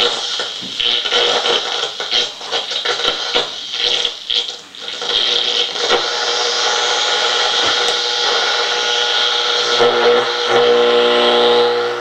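Static and hiss from a National HRO-60 valve communications receiver being tuned: choppy and broken at first, then a steady rushing noise. About ten seconds in, a steady buzzing tone comes in over the hiss.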